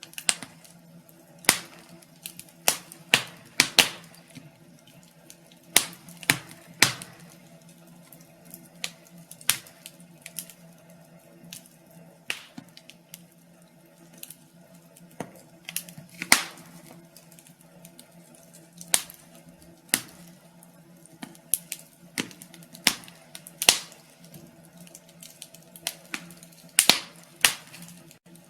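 Wood fire crackling in a fireplace: irregular sharp pops and snaps, some much louder than others, over a faint steady low hum.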